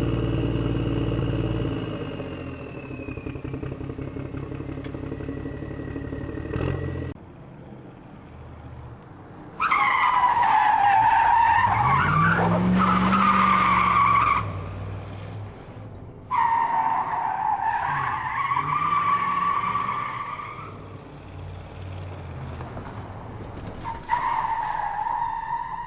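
A car engine running steadily, stopping about seven seconds in, then tyres screeching three times, each screech lasting a few seconds with a wavering pitch.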